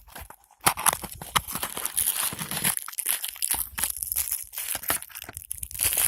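Dense crinkling and crunching noise made of many small, sharp clicks close together, starting about half a second in.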